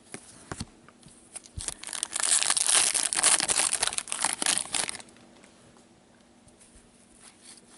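Crinkling and tearing of a trading card pack wrapper, dense crackling for about three seconds from about two seconds in, with a few light clicks before it.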